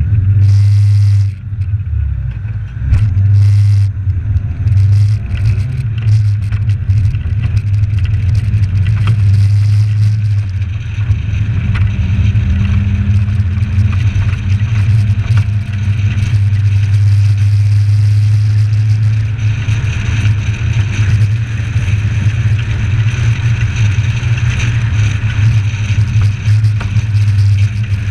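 Suzuki Samurai's engine running with a steady low drone as the 4x4 pulls away from a stop and drives along the road. Short, loud, rough noise bursts come in the first few seconds.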